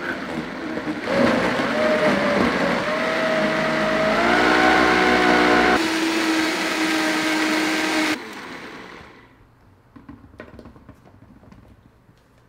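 Vitamix blender motor running through frozen acai, bananas and blueberries, its pitch stepping up as the speed is turned up. It switches off about eight seconds in and spins down over about a second, followed by a few light clicks.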